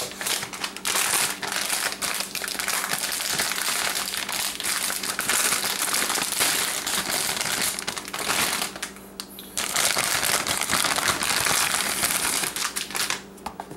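Plastic packaging crinkling and rustling in a run of crackles as a graphics card is unwrapped by hand, with a short lull about nine seconds in.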